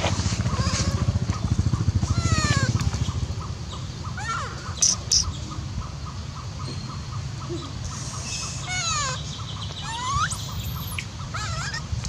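Short high-pitched animal calls, each a quick glide in pitch, a few seconds apart, over a low rumble in the first three seconds, with two sharp bursts about five seconds in.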